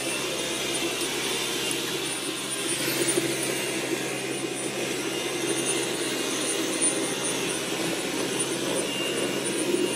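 Dyson V11 Torque Drive cordless stick vacuum running steadily on its regular power mode, its motorised cleaner head sweeping a hardwood floor.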